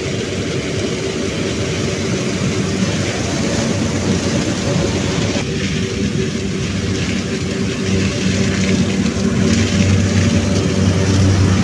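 New Holland CX6.80 combine harvester working through standing maize with its corn header: a steady engine drone over the rush of the threshing and header machinery, growing louder from about eight seconds in as the machine draws near.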